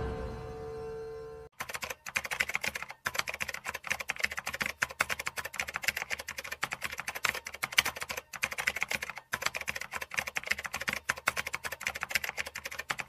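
Keyboard typing sound effect: fast, irregular key clicks with a few brief pauses, starting about a second and a half in as the tail of a fading hum dies away.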